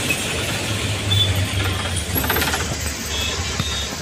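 A vehicle engine running with a steady low hum, under the even noise of road traffic.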